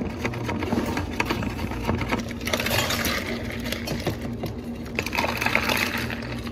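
Spoons stirring drinks in plastic cups, clicking against the sides, then ice cubes scooped and tipped into the plastic cups, rattling about two and a half seconds in and again about five seconds in, over a steady low hum.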